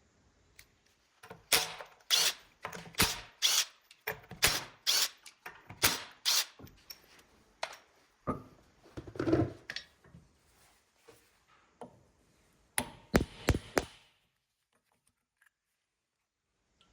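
A run of sharp knocks and clacks, about two a second for several seconds, then a duller shuffling noise and a quick cluster of three or four more knocks.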